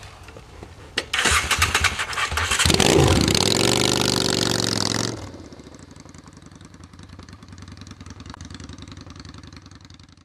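Motorcycle engine started about a second in and revved hard. About five seconds in it drops sharply and runs on much quieter as the bike pulls away.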